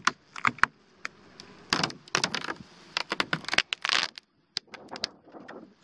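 Plastic cover sheet being peeled off the top bars of a beehive, crackling and crinkling in quick, irregular bursts that thin out after about four seconds.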